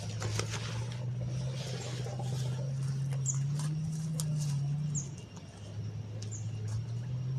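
Decoy quail in a wire cage trap giving short, high chirps about every second and a half, over a steady low hum.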